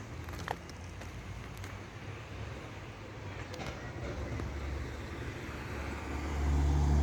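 Diesel locomotive engine running with a steady low rumble that grows louder near the end, with a few faint clicks.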